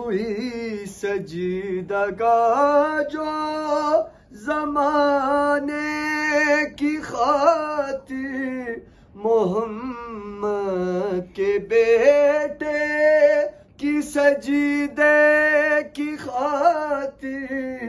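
A solo male voice chanting a melodic religious recitation from a text, unaccompanied. It comes in long, held phrases with short pauses for breath about every four to five seconds.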